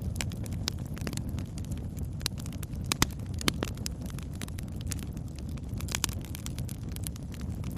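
Campfire burning: wood crackling with frequent sharp pops over a steady low rush of the flames. The loudest pops come about three seconds in and again half a second later.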